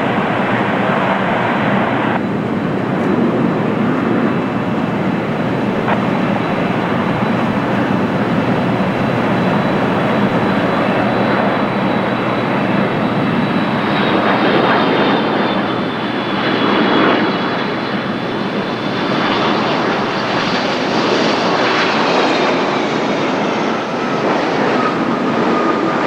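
Airbus A330-300 on final approach, its Pratt & Whitney PW4000 turbofans at approach power: a steady jet rumble with a thin high whine, the whine dipping slightly in pitch in the second half as the airliner passes close.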